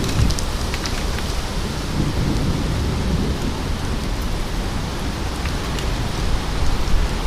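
Steady rain in a severe thunderstorm, with wind rumbling on the microphone and a few sharp ticks of drops striking near the start.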